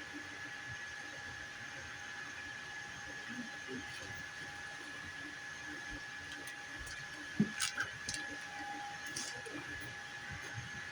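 3D printer running with a steady high whine, and a few sharp clicks about seven to eight seconds in.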